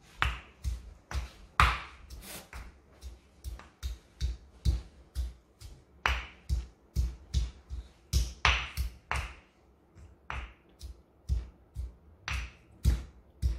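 A stone pestle pounding garlic cloves in a stone mortar: sharp, uneven knocks about twice a second, with two short breaks.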